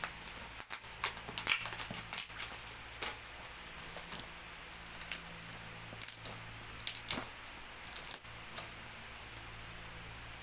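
Hands handling and turning a cardboard shipping box with a clear plastic pouch on its lid, giving scattered clicks, crinkles, taps and scrapes while searching for where the box opens. The handling noises thin out near the end.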